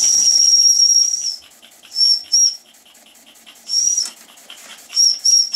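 Toy steam engine's steam whistle blown: one high-pitched toot of about a second and a half, then five short toots, over the quick, even chuffing of its small double-acting engine running on steam.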